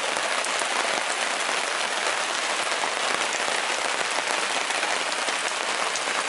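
Heavy rain pouring steadily, falling on the tarp shelter overhead and the surrounding forest.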